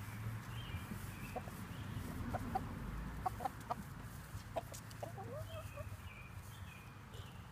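Chickens clucking: short, scattered clucks, several in quick runs through the middle of the stretch, with a few higher chirps.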